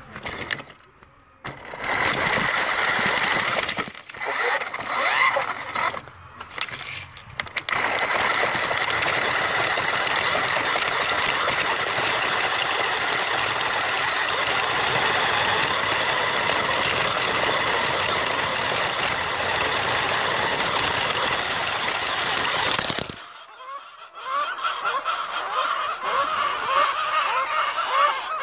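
RC car's motor and gears whining as it drives over a dirt lane, with wheel and gravel noise. It runs in a few short bursts, then steadily for about fifteen seconds, and cuts off suddenly. Near the end come a few honking bird calls, like geese.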